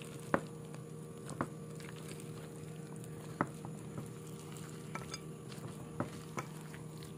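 Thick fruit-laden Christmas cake batter being mixed in a bowl: soft, irregular squishing with a few sharp clicks spaced a second or more apart, over a steady low hum.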